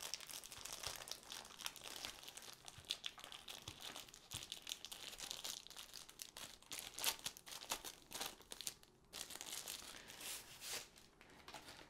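Thin clear plastic wrapping crinkling and crackling as it is slid off a rolled canvas and crumpled in the hands, in dense irregular bursts with a brief pause about nine seconds in.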